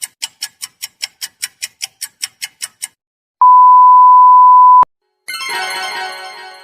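Three stock sound effects in a row: a quick run of about fifteen high clicks, about five a second; then a loud, steady single-pitch beep of about a second and a half, the classic censor bleep; then a bright, chime-like musical sting that fades away.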